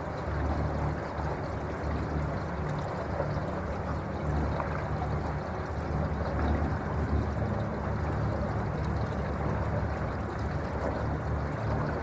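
Water rushing and lapping along the hull of an electric boat under way: a steady wash with a low, uneven rumble and no motor tone.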